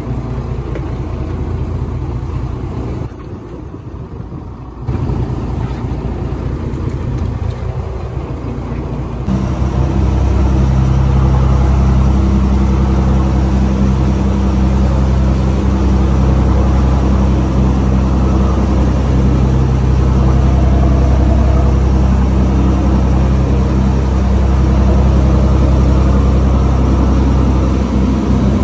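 Fishing boat's engine running under way, a steady low drone with rushing noise over it; it becomes louder and steadier about nine seconds in.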